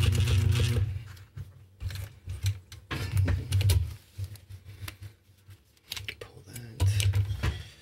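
Juki DDL-555 industrial straight-stitch sewing machine stitching through heavy webbing in short runs: a run of stitches at the start that dies away about a second in, then two shorter runs around three seconds in and near the end, with sharp clicks between them as the work is handled.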